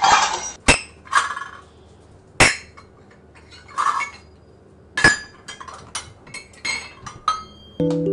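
Stainless steel measuring cups clanking and clinking against each other and a bowl: a few sharp knocks spaced over the first seconds, then a quick run of lighter clinks. Music comes in right at the end.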